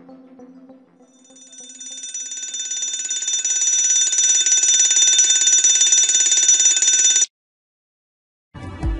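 A bedside ringer sounding a rapid, high trilling ring that swells up over a couple of seconds, holds steady, then cuts off suddenly about seven seconds in. About a second of silence follows.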